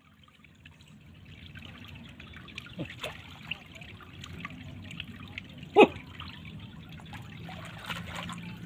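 Water trickling and dribbling, with small splashes and knocks from handling a net and fish in shallow water. One sharp, louder sound comes a little under six seconds in.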